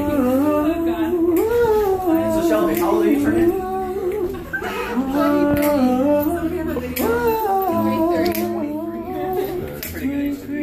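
A single voice singing a slow birthday serenade unaccompanied, in long held, gliding notes with short breaths between phrases.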